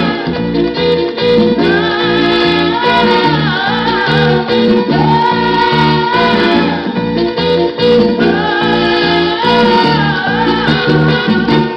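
Song playing from a vinyl record on a Sony LBT-A195 stereo: long, sliding sung vocal lines over guitar and a steady bass beat.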